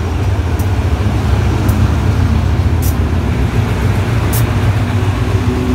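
Diesel locomotive engine running under power as the locomotive pulls slowly past at close range: a loud, steady, deep rumble. A few short high hisses sound over it about once a second.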